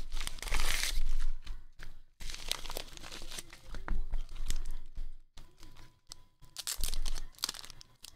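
A padded paper mailer envelope being torn open, with paper crinkling and rustling as its contents are pulled out. The tearing is loudest in the first second, and scattered crinkles and light clicks follow.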